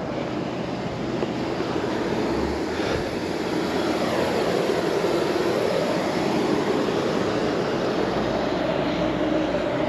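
1966 Ford Mustang's engine idling, a steady drone that grows a little louder over the span.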